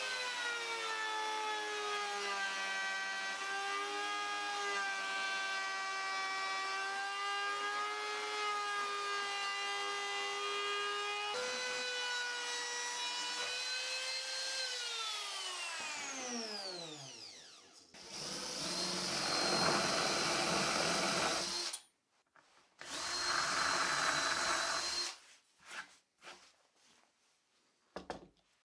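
Compact trim router with a flush-trim bit cutting along the edge of a plywood workbench top, its high motor whine dipping a little under load, rising when the cut ends, then falling in pitch as it is switched off and winds down over about three seconds. Two short, rougher bursts of another power tool follow, and a few light knocks near the end.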